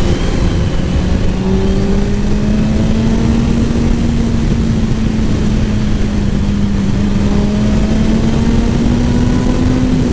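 Sport motorcycle engine running under way, its steady tone climbing slowly as the bike gathers speed, under a loud rush of wind and road noise.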